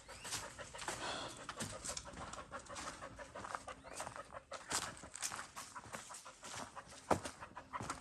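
A dog panting, with irregular footsteps crunching as it and its owner walk.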